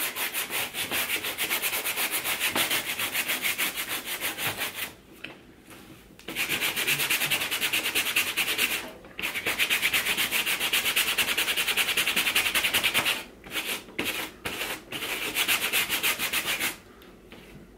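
Stiff-bristle brush scrubbing a sneaker sole wet with acetone in rapid back-and-forth strokes, working the old glue off. The strokes come in runs, with short pauses about five seconds in, at nine seconds, and between thirteen and fifteen seconds.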